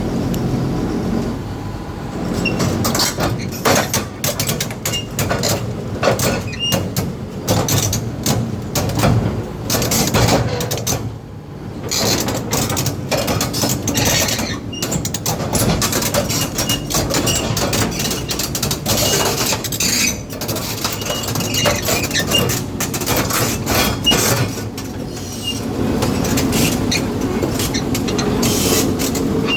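Excavator at work: its diesel engine and hydraulics run under load, with frequent knocks and clanks of the bucket and material and brief high squeaks.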